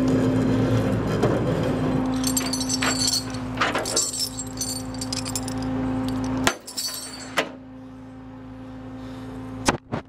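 Tow chain clinking and jangling as it is dragged out on the flatbed's winch cable, over the steady hum of the tow truck's engine running with the PTO engaged. The hum stops suddenly about six and a half seconds in, and there are a couple of sharp metal knocks near the end.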